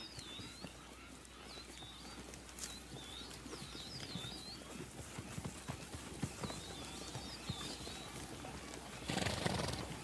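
Plains zebras grazing and shifting in grass: soft scattered hoof steps and grass-cropping clicks, with high repeated chirping over them and a short, louder breathy sound about nine seconds in.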